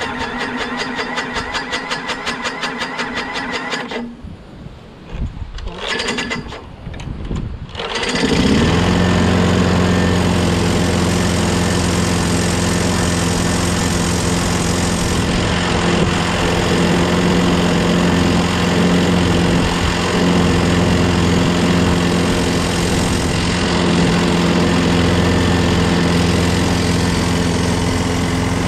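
Briggs & Stratton Quantum 6.5 hp lawnmower engine cranked by its electric starter motor in a steady rapid rhythm for about four seconds. After a few seconds of uneven stutters it catches about eight seconds in and runs steadily.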